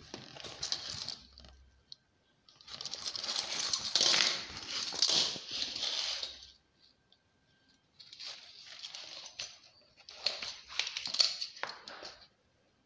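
Metal buckles and rings of a pile of heavy-duty nylon dog collars clinking and rattling against each other as they are handled, with the rustle of the webbing, in three bursts of a few seconds each.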